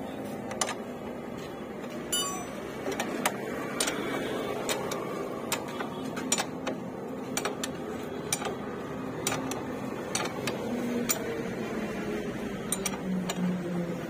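Short metallic clicks and clinks, irregular, about one or two a second, from a spanner working the rear axle nut and chain adjuster bolt of a motorcycle's rear wheel.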